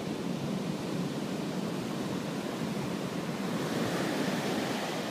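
Ocean surf: a steady rush of breaking waves.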